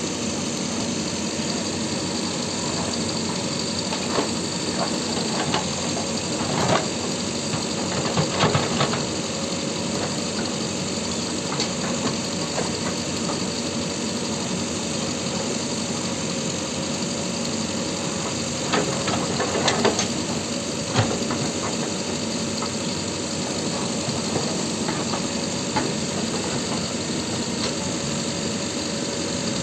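Diesel engine of a JCB earthmoving machine running steadily, with occasional short knocks over the engine noise.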